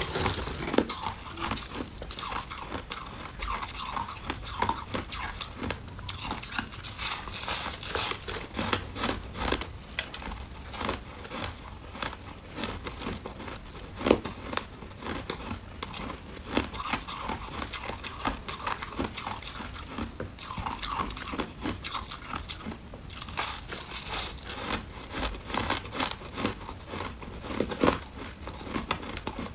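Close-miked crunching of soft white frost ice: bites into hand-packed lumps of shaved ice and chewing, mixed with gloved hands crumpling and squeezing the ice in the bowl. Dense crackly crunches throughout, with a few louder bites about 14 s in and near the end.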